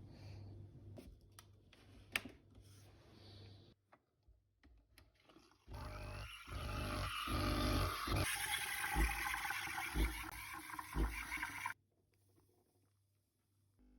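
Espresso machine running: a loud hissing, gurgling rush with low thumps, starting about six seconds in and cutting off suddenly about six seconds later, after a few faint clicks.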